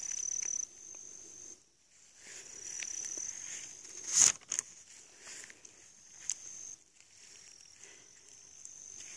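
Insects trilling in a high, steady tone that stops and starts every second or two, with a few sharp knocks; the loudest knock comes about four seconds in.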